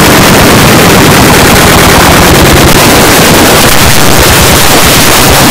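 Heavily distorted, clipped electronic sound effects: a loud, dense, harsh cacophony with a fast rattling crackle.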